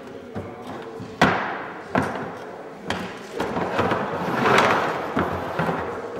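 A swivel armchair being shoved and tipped on a hard floor: several hard knocks, the loudest about a second in, then a longer rustling scrape that swells near the middle.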